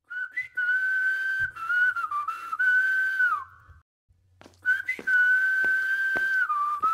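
A person whistling a slow tune in two phrases of long held notes that dip and slide downward, with a short break between them about halfway through. A few light taps can be heard during the second phrase.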